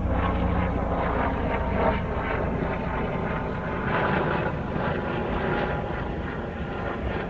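Steady, loud rumbling rush with a heavy low end and no clear pitch. It stays even throughout.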